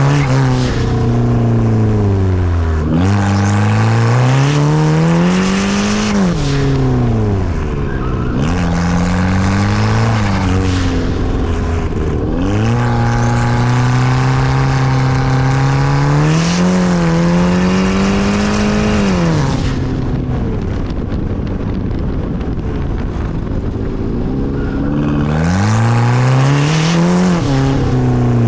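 2012 Kia Optima SX's big-turbo 2.0-litre four-cylinder pulling hard and lifting off again and again, its note climbing and dropping through the revs several times. There is a steadier stretch in the middle and a quieter spell of lighter throttle before one last pull near the end.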